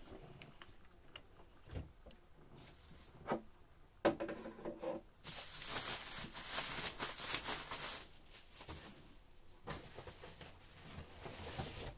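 Packaging being unpacked by hand: rustling and tearing of boxes and wrapping, with small clicks and knocks as pieces are handled. A brief murmur of voice comes about four seconds in.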